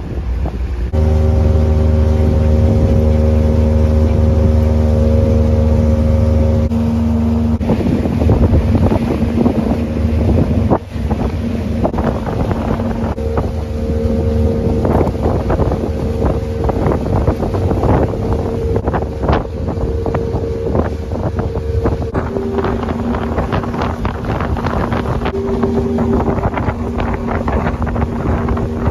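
Pontoon boat motor running steadily under way, with a low rumble and a steady engine tone that shifts pitch a couple of times. Wind buffets the microphone, roughest in the second half.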